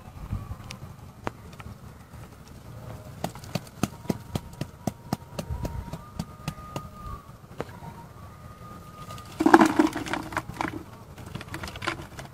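Bamboo ghuni fish trap being handled: a run of sharp, irregular clicks and taps from its slats and catch. About ten seconds in comes a short, louder call that sounds like a voice.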